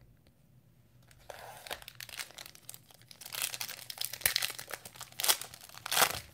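A foil pack of Panini Mosaic basketball cards being torn open and crinkled by hand, starting about a second in, with sharp crackles that are loudest near the end.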